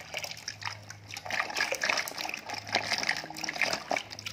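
Water pouring from a plastic tub into a basin of water, splashing and sloshing, getting busier and louder from about a second in.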